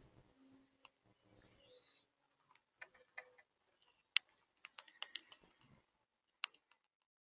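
Monk parakeets (Quaker parrots): a soft chirp, then a faint scatter of short, sharp clicky calls, uneven and a few per second, dying away near the end.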